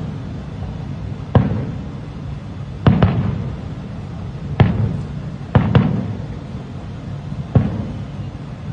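Aerial firework shells bursting: about seven sharp booms, a second or two apart and some in quick pairs, each trailing off in a rumble.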